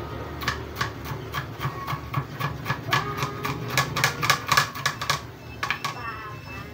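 Kitchen knife chopping chili peppers on a cutting board, quick even strokes about four a second, stopping about five seconds in.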